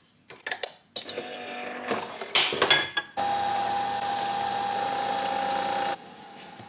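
A few clicks and clatters, then a small electric motor runs steadily with a fixed hum for about three seconds and cuts off suddenly.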